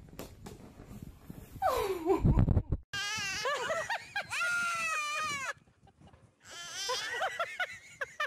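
A loud drawn-out cry falling steeply in pitch about two seconds in. Then a young goat kid and a baby girl trade long, wavering bleat-like yells, one call about three seconds in and another near the end.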